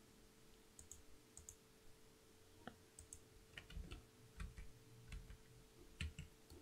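Near silence with a low steady hum and faint, scattered clicks from computer controls, a dozen or so spread unevenly through the stretch.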